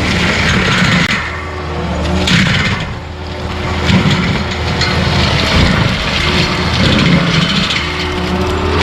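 Skid steer engine running under load as its forestry mulcher head grinds stumps and wood debris, with a steady low engine hum, harsh grinding and a few sharp knocks from the wood.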